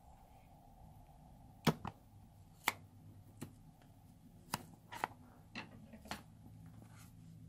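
A filled rubber balloon being squeezed and handled, giving a string of sharp taps and clicks, about eight of them, irregularly spaced over five seconds.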